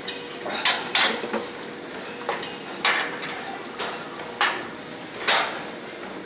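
Sharp metallic clanks of gym weights and bars, about five spread irregularly, the loudest two close together about a second in, over a steady background hum.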